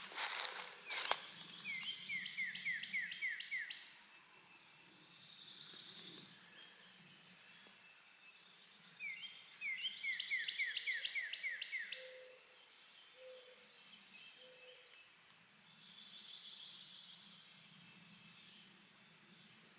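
Woodland birdsong at dawn: a songbird twice sings a fast run of repeated down-slurred whistled notes, with other birds adding short high phrases in between. Three faint, short low calls come from far off shortly after the second song.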